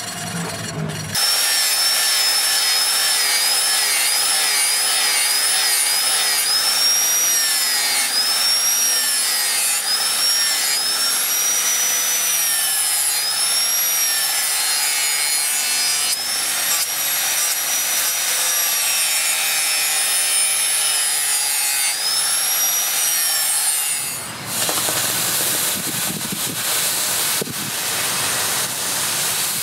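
Angle grinder with an abrasive disc grinding a steel sword blade, its high whine rising and falling over and over as the disc bites and eases off. Near the end it gives way to a steady rushing hiss from the charcoal forge that the blade is heating in.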